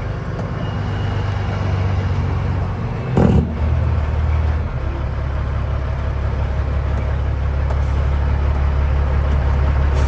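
Diesel engine of a freshly overhauled 2014 Peterbilt glider semi-truck running at low speed as the truck is maneuvered. About three seconds in there is a short loud burst, after which the engine note holds lower and steadier.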